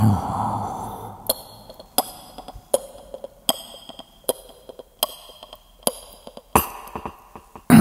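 Vocal mimicry of sharp clicks or knocks, one about every three-quarters of a second with fainter clicks between, performed as a horror sound effect.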